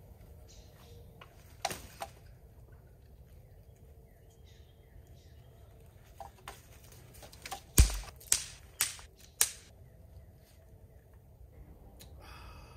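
Dry wood being handled at a campfire: a couple of sharp cracks about two seconds in, then four loud knocks and cracks in quick succession about eight seconds in, the first with a dull thump like a log set down.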